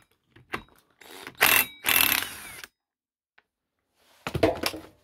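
Cordless impact wrench hammering briefly on a scooter's CVT variator (front pulley) nut, about a second and a half in, lasting just over a second.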